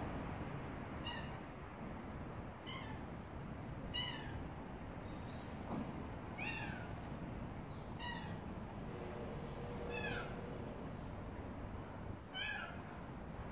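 A cat meowing over and over: seven short meows, each falling in pitch, one about every one and a half to two seconds.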